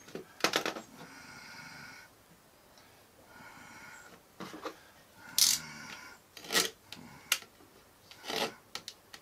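A utility knife scoring marking lines across wooden battens against a square: about six short scraping strokes, spaced a second or so apart in the second half.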